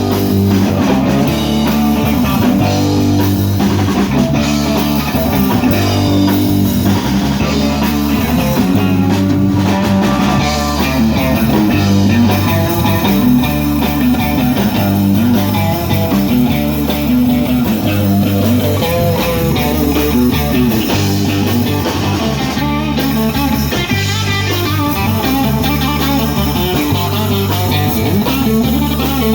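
Instrumental break in a blues-rock song: guitar to the fore over a repeating bass line and drum kit.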